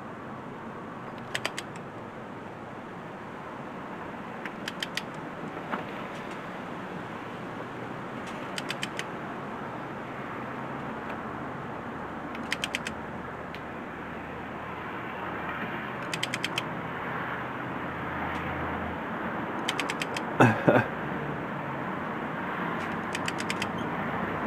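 Torque wrench ratcheting as cam cap bolts are tightened: short runs of two to four quick ratchet clicks every few seconds. About twenty seconds in there is a louder double clack of metal.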